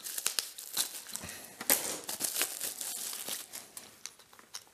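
Thin plastic packaging crinkling and rustling as it is handled, with small clicks of hard plastic parts; the rustling dies down near the end.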